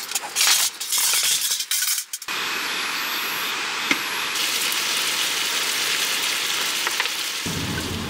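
Metal camp cookware clinking as a pot is set on a small stove, with a sizzling hiss in short bursts; about two seconds in it cuts to a steady, even hiss.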